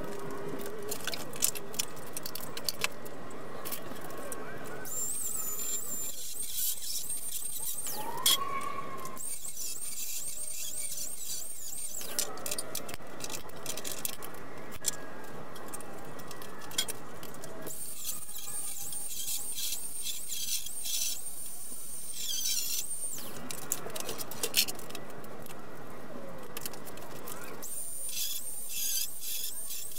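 Sped-up workshop sounds from a time-lapse teardown: high chirping squeaks and scattered clicks, the character changing every few seconds.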